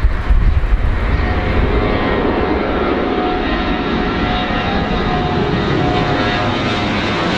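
Four-engine jet airliner's engines at takeoff power as it climbs out low overhead: a loud, steady roar with a high whine from the fans riding on top. Some gusty low rumble comes in the first second.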